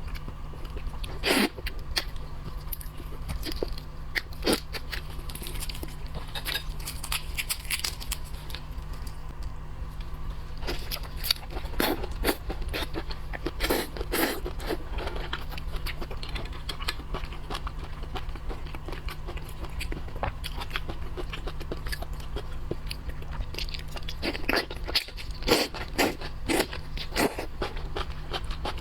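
Close-up eating sounds: a person biting and chewing crunchy food, with irregular crisp crunches and crackles, louder clusters about a dozen seconds in and near the end, over a steady low hum.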